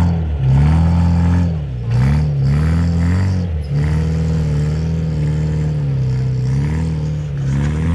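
Off-road 4x4 vehicle's engine revving under throttle. Its pitch drops and climbs again several times, with a steadier stretch in the middle.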